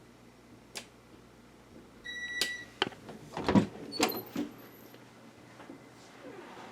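A short, high electronic beep about two seconds in, then a run of sharp clicks and knocks over a low steady hum that fades out about halfway through.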